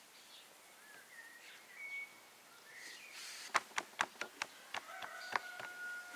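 Birds chirping faintly, then a quick run of about seven sharp taps and knocks on a wooden pastry board over two seconds as dough and a metal crimping tool are handled on it.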